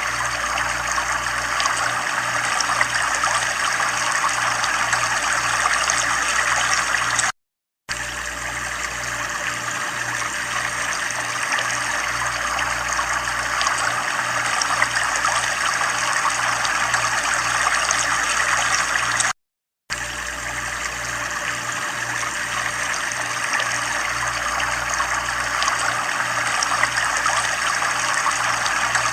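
Steady running, trickling water with a faint regular low pulse beneath it. It cuts out to silence twice for about half a second.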